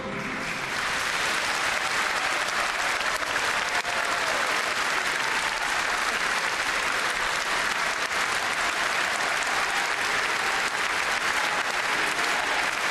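A large crowd applauding steadily, a dense, even clatter of many hands clapping.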